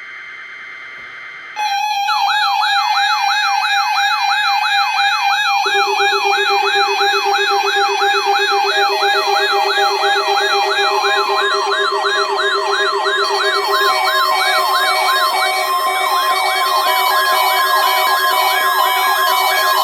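A brief buzzy digital tone from the alert's data header. Then, about a second and a half in, several electronic weather-radio alarms start up one after another, all loud: siren-like warbling wails of about two sweeps a second, joined by steady beeping tones, the layers piling up as each receiver activates on the weekly test alert.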